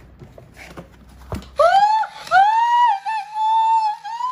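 A sharp knock, then a female voice screaming high-pitched in several long, held screams with short breaks, starting about one and a half seconds in.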